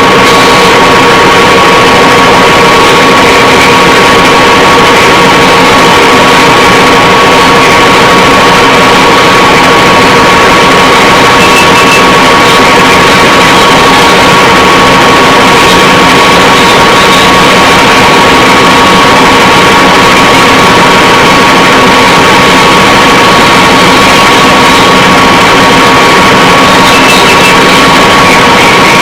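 Funai VCR/DVD player's tape mechanism running: a steady, very loud, distorted whirring with a constant whine that does not change.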